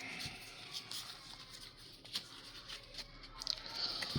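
Faint handling of freshly pulled trading cards: soft rustling with scattered small ticks, and a slightly louder tick near the end.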